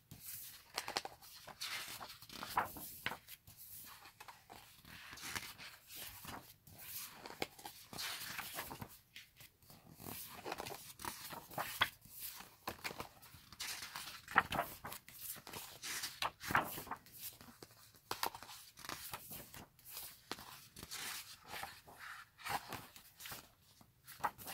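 Photo book pages turned and brushed by hand: repeated short paper swishes and rustles, irregular, with small taps of the pages settling.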